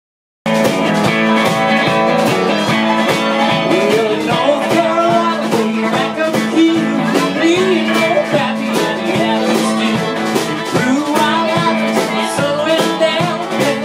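Live country band playing: electric guitars, a bowed fiddle and drums keeping a steady beat, with a man singing from about four seconds in. The music cuts in abruptly about half a second in.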